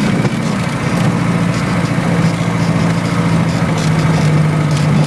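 Off-road vehicle's engine running steadily at low speed, with scattered light clicks and knocks over it.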